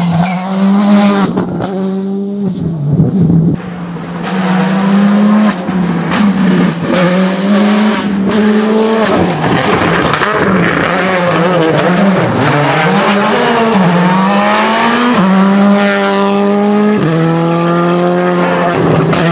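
Rally car engines revving hard, the pitch climbing under throttle and dropping back at each gear change or lift, as the cars run through the stage.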